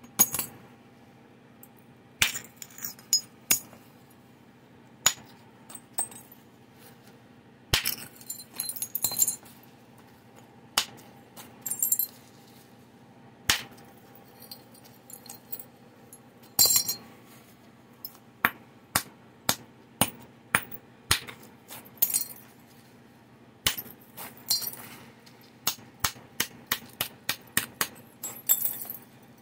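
Flintknapping: an antler billet striking the edge of a cortex-covered flint nodule, the early percussion stage of shaping a Clovis point. Sharp, irregular clicks and knocks, some spaced a few seconds apart and some in quick runs, several with a short rasp as flakes come away or the billet rubs the edge.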